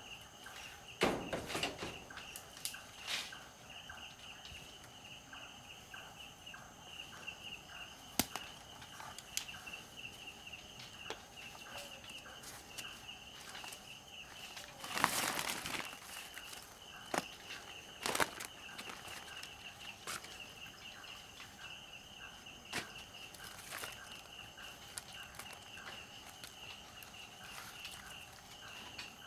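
Night insects chirping in a steady, pulsing chorus. Scattered knocks and rustles of walking and handling gear come over it, the loudest a rustle lasting about a second halfway through.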